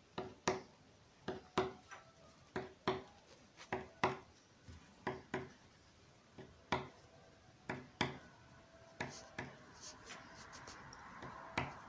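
A pen writing on a sheet of paper lying on a wooden table. It makes short tapping strokes in pairs, about once a second, as it writes a column of equals signs, two strokes each. A soft rustle of paper comes near the end.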